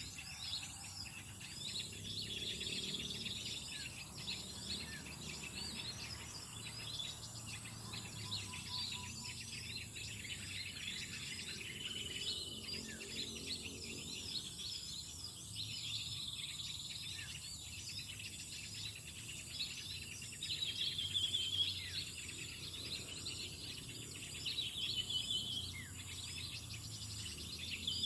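Many small birds chirping and twittering at once, with a steady high insect drone underneath; the chirping swells twice in the second half.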